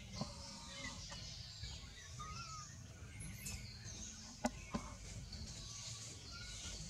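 Forest ambience: birds chirping and calling now and then over a steady high hiss and a low rumble, with two sharp clicks about four and a half seconds in.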